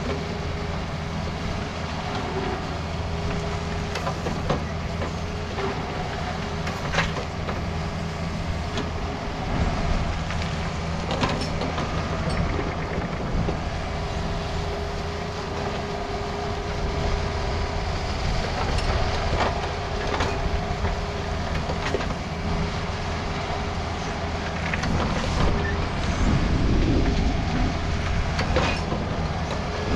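Takeuchi TB260 mini excavator's diesel engine running steadily while the machine works its boom and bucket, with scattered sharp knocks and scrapes of the steel bucket in gravel and dirt. It grows louder in the last few seconds.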